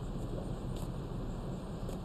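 Steady low outdoor background rumble with two faint ticks, one about a second in and one near the end.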